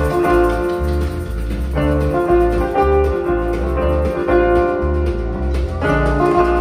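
Live exotica jazz band playing, keyboards to the fore, over a bass line in short, even notes; the chords change twice.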